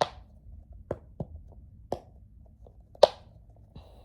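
Bubbles of a pop-it fidget ball being pressed, giving five short, sharp pops at an uneven pace, the loudest about three seconds in.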